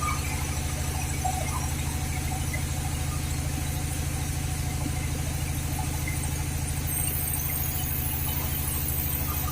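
Sawmill machinery running steadily, its engine giving an even low drone with a fast regular pulse.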